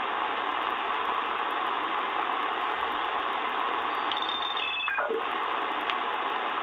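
Sangean ATS-909X2 shortwave receiver in upper sideband giving out steady band noise as it is tuned up through the 5.3 MHz range. About four seconds in, a whistle slides quickly down in pitch as the tuning passes a signal's carrier, and a faint click follows about a second later.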